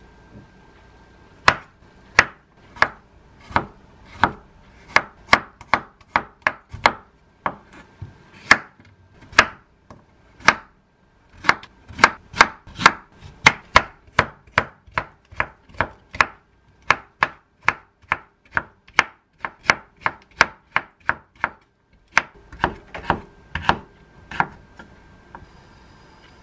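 A chef's knife slicing zucchini into long strips on a wooden cutting board: a steady run of sharp knife strokes, about two to three a second, with one brief pause near the end.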